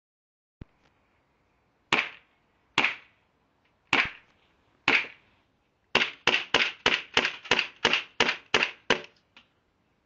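P14 full-metal CO2 airsoft pistol firing with blowback: a small click, then four single shots about a second apart, then a quick string of about ten shots, roughly three a second, each a sharp crack of gas and the slide slamming back.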